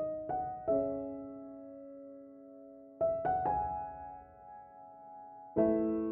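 Background music: soft, slow piano, with notes and chords struck in small groups that are left to ring out.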